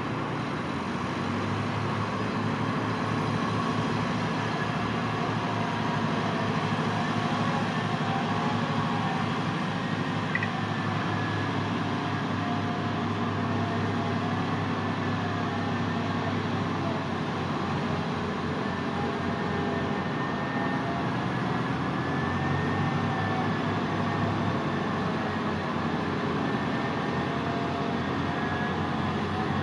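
Diesel engine of a Liebherr LTM 1100-5.2 all-terrain crane running steadily, with a faint high whine that wavers slightly in pitch.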